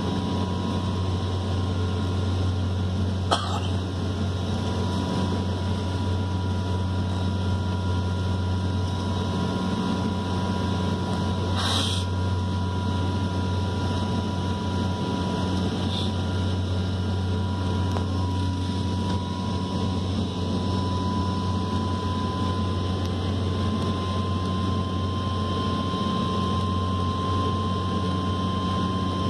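Steady cabin drone of the Saab 340's twin turboprop engines, with a strong low propeller hum and a thin whine that creeps slightly higher in pitch about two-thirds through. Two brief clicks come a few seconds in and about twelve seconds in.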